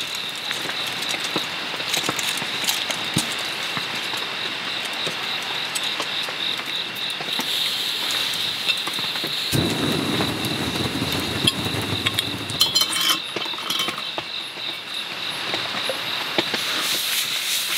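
Steady rain falling on a camp shelter, with crickets trilling high and steady. A louder rush of lower noise comes in about ten seconds in for two seconds, followed by a brief cluster of clinks.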